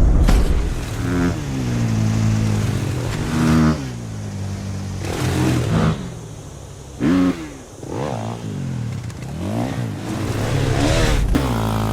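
Motocross bike engine sound effect, revving up and falling back about every two seconds as if working the throttle through a track's turns and jumps, with a short lull just past the middle.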